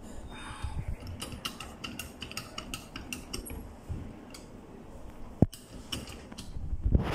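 Hand pressure pump on a gauge calibration bench being worked to build pressure, giving a quick run of light metallic clicks, then one sharp knock about five and a half seconds in.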